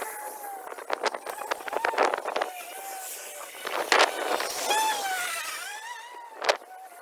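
EGO battery-powered lawn mower running, its electric motor whine wavering up and down in pitch as the load changes, with scattered sharp clicks and a loud knock about six and a half seconds in.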